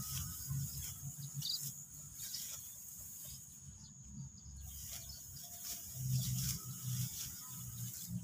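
Hand sickles cutting ripe rice stalks in repeated short rustling strokes, over a steady high-pitched drone of insects. A low uneven rumble comes and goes, loudest about six seconds in.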